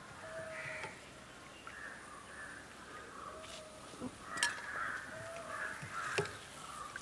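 Birds calling repeatedly, with two sharp metal clinks about four and six seconds in as a slotted steel spoon lifts fried vadas out of the pan.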